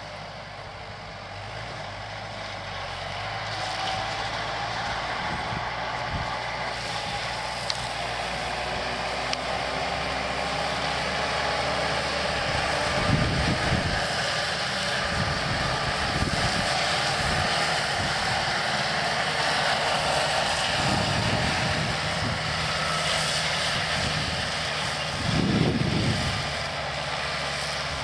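Kubota M5140 tractor's diesel engine running steadily with a CM 165 drum mower cutting hay, growing louder as the tractor comes close about halfway through and easing off slightly near the end. A few short low thuds stand out about halfway through and again near the end.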